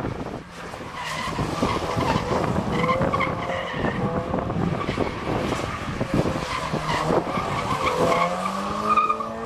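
Toyota GT86 flat-four engine revving hard through a donut on wet tarmac, its pitch wavering as the rear tyres spin and skid with some squeal. The engine note climbs near the end.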